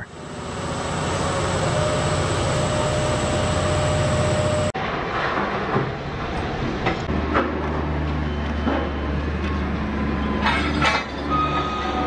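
BELAZ 75710 mining dump truck, powered by two 16-cylinder turbocharged diesel engines, running as it drives with a steady engine rumble and noise. A hard cut a little under five seconds in switches to a mining shovel loading rock into the truck's bed: a heavy, steady engine drone with scattered knocks of falling rock.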